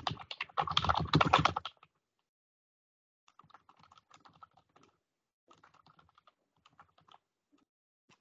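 Typing on a computer keyboard: a loud quick run of keystrokes for about the first two seconds, then two fainter bursts of typing.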